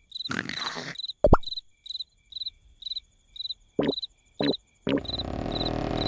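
Cartoon crickets chirping steadily, about two to three chirps a second. A breathy snore-like sound comes near the start and a few short squeaky sound effects follow, then a low rumble swells from about five seconds in.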